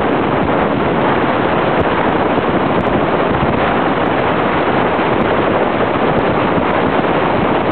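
Steady, loud rush of wind over the camera microphone while riding a zip line at speed.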